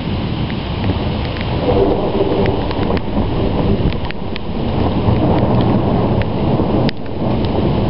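Low rumbling thunder rolling on continuously, with a few small sharp ticks scattered through it and one louder click near the end.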